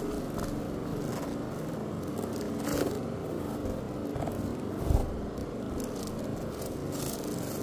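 Paper and cardboard packaging being torn and handled, with crackling and scraping of the wrapping and plastic film, and a dull thump just before five seconds in. A steady background hum runs underneath.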